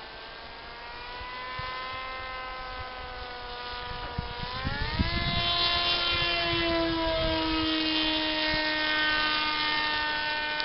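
Motor and propeller of an X8 flying-wing model aircraft whining in flight. About four to five seconds in, the pitch rises sharply and the sound gets louder, then it slowly sinks in pitch.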